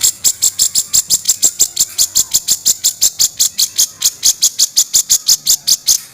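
Cucak jenggot, a bulbul, calling in a fast, unbroken series of short, high notes, about seven to eight a second.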